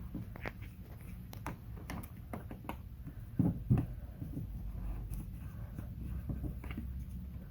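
Hands working vinyl wrap film around a case hinge: scattered light rustles, rubs and clicks, with two louder knocks about three and a half seconds in.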